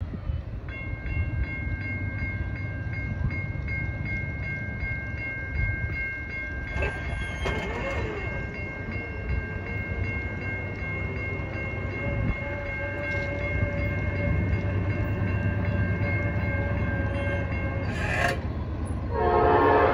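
A railroad grade-crossing warning bell dings rapidly and steadily over the low rumble of an approaching freight train. Near the end the lead locomotive's air horn starts sounding, much louder.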